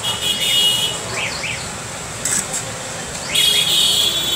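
Small birds chirping in short rising-and-falling calls. A high, steady tone sounds at the start and again near the end.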